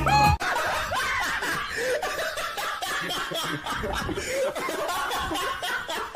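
A person laughing in a run of short, choppy bursts. A snatch of singing music cuts off in the first half second.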